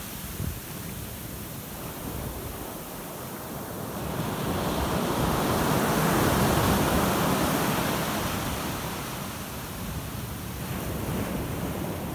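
Ocean surf breaking on the shore: a wave swells up about four seconds in, crashes and washes back, over a steady wash of sea.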